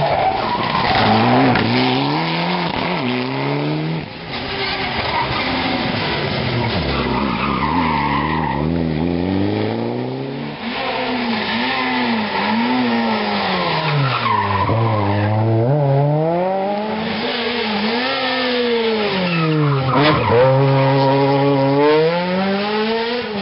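Rally cars driven hard through a tight bend one after another: the engines rev high, their pitch climbing and dropping sharply with each gear change and lift of the throttle, with tyres skidding on the tarmac.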